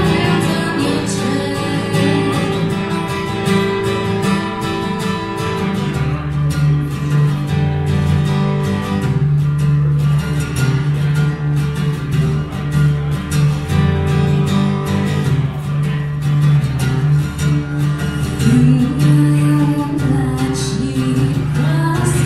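Steel-string acoustic guitar playing an instrumental passage, with a woman's singing voice coming in near the end.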